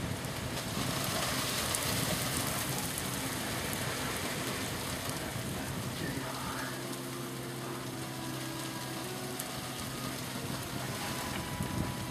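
Steady rain falling, a dense even patter. A low steady hum joins for a few seconds in the middle.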